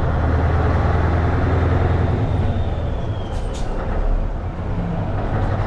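Scania 143M 450's V8 diesel engine pulling the truck away, heard from inside the cab. It runs hard at first, eases off about halfway through with a faint whistle falling in pitch and a short hiss, then pulls strongly again near the end.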